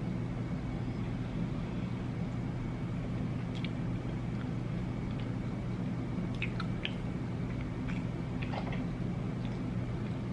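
A person chewing a mouthful of soft cookie, with faint scattered mouth clicks over a steady low hum.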